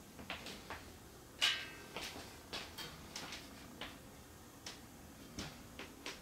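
Scattered small clicks and knocks of exercise gear being handled and a metal chin-up bar being gripped, with one louder clink that rings briefly about a second and a half in.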